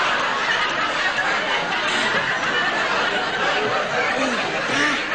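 Studio audience laughing, a long unbroken wave of laughter.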